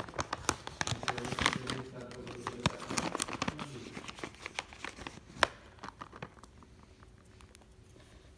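Plastic treat bag being handled: crinkling and crackling, densest in the first few seconds, with one sharp click about five seconds in, then fading.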